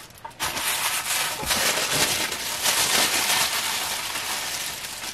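Tissue paper rustling and crinkling as a piece of jewelry is unwrapped by hand: a dense, continuous rustle that thins out near the end.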